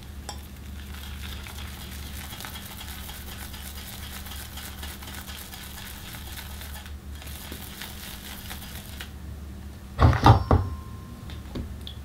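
Fine, crackly wet-shave scratching of lather being worked against the skin and stubble, broken briefly near seven seconds and stopping about nine seconds in. About a second later a hard object is set down in a short clatter of knocks with a brief ring.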